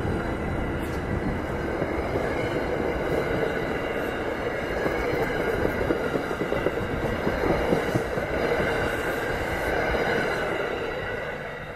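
Commuter rail coaches rolling past close by as the train pulls out, a steady rumble of steel wheels on the rails. The sound fades near the end as the last car clears.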